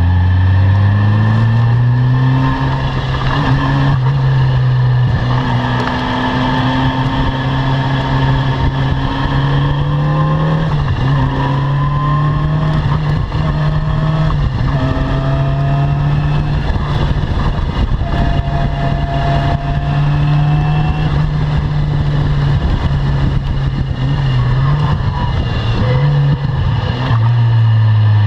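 Caterham Seven R300's four-cylinder engine pulling hard at high revs, its pitch climbing and then dropping back at each gear change, several times over.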